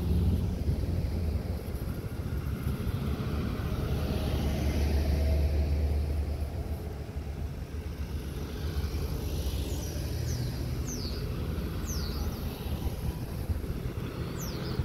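Cars, SUVs and pickups driving slowly past one after another, a steady low engine and tyre rumble.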